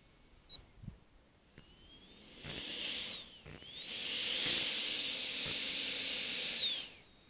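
A big RC EL-39 model jet's engine whining on the ground: a brief throttle-up and back down about two and a half seconds in, then it spools up again, holds a high steady whine, and winds down near the end.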